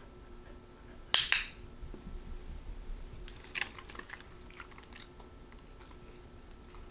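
A training clicker clicks sharply about a second in, a quick double click of press and release, marking the behaviour the dog has just offered. About two seconds later come a few seconds of small crunching ticks as the cattle dog chews its reward treat.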